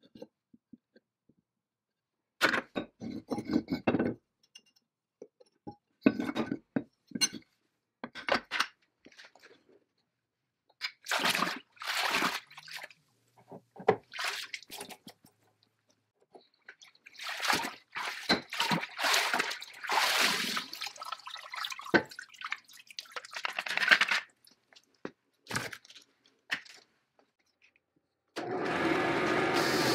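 Liquid splashing and sloshing in irregular bursts as a hand dips rusty cast-iron parts into a bucket of liquid. Near the end a drill press spinning a wire wheel cuts in and runs steadily.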